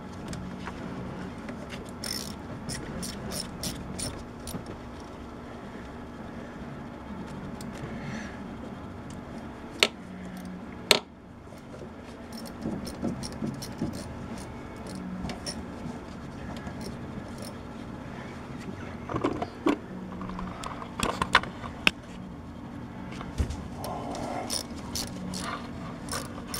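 Socket wrench on an extension running down the bolts of a new valve cover, with scattered ratchet clicks and metal clinks over a steady low hum. Two sharp clinks come about ten and eleven seconds in, and a burst of clicking comes a little past twenty seconds.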